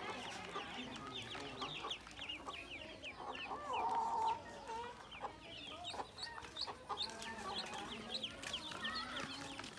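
A crowd of ducklings peeping, many short high chirps overlapping several times a second. A louder, lower call sounds once about three and a half seconds in.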